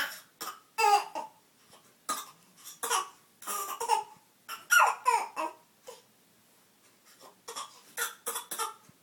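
A baby giving a string of short fake coughs, put on for attention rather than from illness. There are many brief bursts in quick succession, a pause of about a second and a half past the middle, then a few more near the end.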